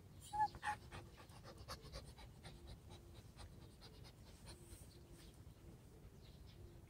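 White puppy panting with its mouth open. A few sharp clicks sound about half a second in, and fainter light clicks follow.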